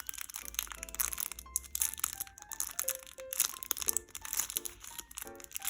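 Crinkling plastic packaging, handled in the hands in irregular crackles, with soft background music.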